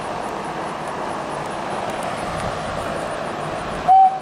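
Steady outdoor background noise, an even hiss like distant traffic or wind on the microphone. About four seconds in comes a brief, louder single tone, and then the sound cuts off abruptly.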